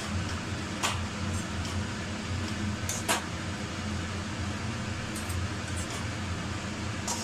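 Metal utensils clicking and scraping against a steel wok a few times as noodles are tossed and mixed, over a steady low hum from a running fan or burner.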